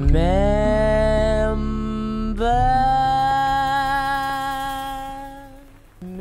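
Pop song's wordless outro: two long held notes that each slide up into pitch and waver slightly, over a bass that drops out after about two seconds. The second note fades away near the end.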